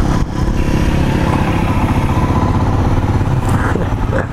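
Royal Enfield Himalayan's 411 cc single-cylinder engine running steadily as the motorcycle is ridden along.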